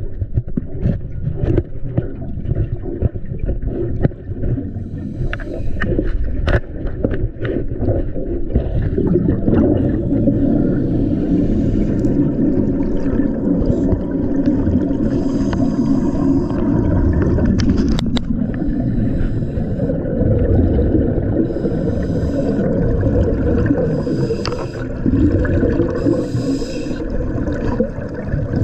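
Underwater sound of a scuba diver's breathing regulator: hissing breaths and bubbling exhalations recurring every couple of seconds over a steady low rumble of water moving past the camera housing. In the first eight seconds or so there are many sharp clicks and knocks, as the housing scrapes along the algae-covered hull.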